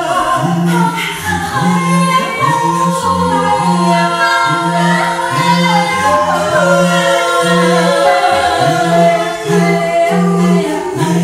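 Small mixed group of voices improvising a cappella. A low voice repeats a short pulsing note about every two-thirds of a second, while higher voices hold and slide long lines above it.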